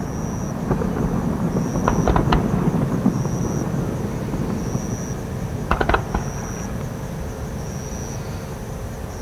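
Aerial fireworks: low rumbling booms and echoes, with a few sharp crackling bursts about two seconds in and again about six seconds in.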